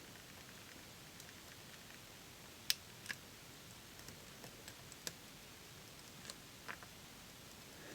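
Faint, irregular small clicks of a lock pick working the spool pins inside a Robur safe deposit box lock, a scattering of single ticks with the sharpest just under three seconds in.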